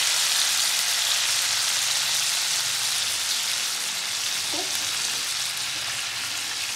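Marinated chicken pieces sizzling in hot butter and oil in a pan, a steady hiss that eases slightly over the seconds. The sputtering comes from the moisture of the lime juice and ginger-garlic paste in the marinade.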